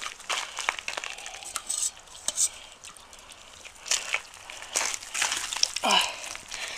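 Dogs and cats eating meat porridge from bowls: wet, irregular chewing and lapping with small clicks and scrapes.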